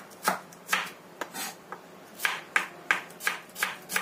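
Kitchen knife slicing shallots thinly on a wooden cutting board: an uneven series of sharp knife taps against the board, about two to three a second.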